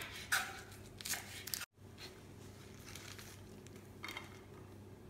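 Kitchen knife cutting through spring onions onto a wooden cutting board: three or four crisp cuts in the first second and a half, then the sound drops out for an instant. After that, quieter handling of the cut pieces with one light knock about four seconds in.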